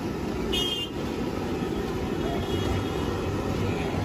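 Steady low rumbling noise of a roadside street-food stall, with the gas burners under the woks and passing traffic. A short high-pitched toot comes about half a second in.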